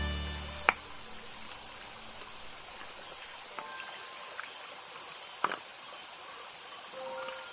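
Steady hiss of a shallow stream running over rocks, with sharp knocks of stone on stone about a second in and again after about five seconds as flat stones are lifted from the creek bed.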